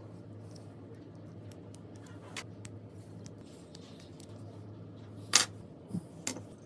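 Small metal clicks and ticks from a spring-loaded self-centering hinge drill bit being handled and taken apart, with one sharp metallic click a little past five seconds in and two lighter clicks after it. A low steady hum runs underneath.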